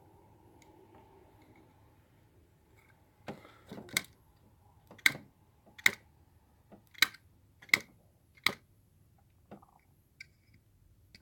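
Sharp small clicks, about one a second for several seconds, from fingers and fingernails picking at the stiff opening hood of a die-cast M2 1969 Pontiac GTO Judge model car.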